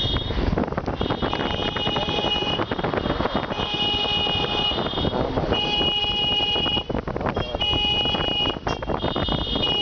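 Car horns honking in repeated long blasts, about one every one and a half seconds, over steady traffic noise: drivers sounding their horns in protest.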